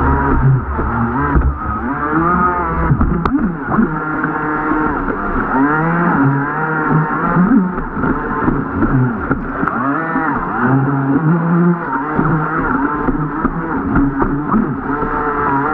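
RC jet boat's motor revving up and down over and over, its whine rising and falling in pitch with each burst of throttle.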